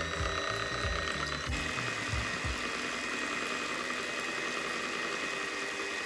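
Electric hand mixer running at speed, its twin beaters whipping egg whites in a bowl, with a steady motor whine. The whine's pitch shifts about a second and a half in, and there are low knocks in the first couple of seconds.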